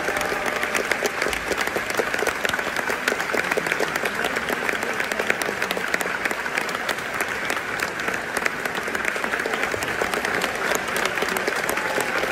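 Audience applauding steadily, a dense crowd of clapping hands.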